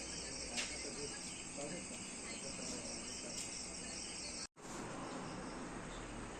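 Insects chirping steadily, a high, finely pulsing chorus. The sound drops out abruptly for a moment about four and a half seconds in, and the chirping is fainter after it.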